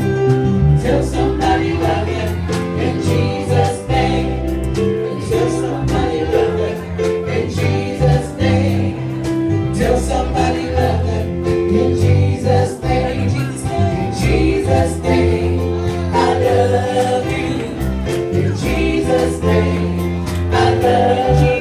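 Live Christian worship song: a group of singers on microphones sings together over a band with a drum kit and bass, played loud through the PA.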